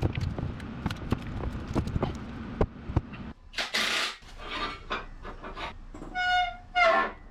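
Rapid clinks and knocks of tools and metal parts being handled on an engine for about three seconds, then a brief hissing burst and, near the end, two short high-pitched squeal-like sounds.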